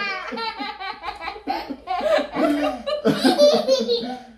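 People laughing hard in short, repeated pulses.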